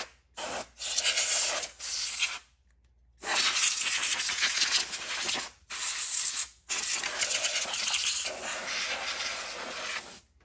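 Compressed air blown in bursts into the dusty insides of a reel-to-reel tape deck, a hiss that comes and goes. A few short blasts come first, then longer ones of two or three seconds each, with the last stopping just before the end.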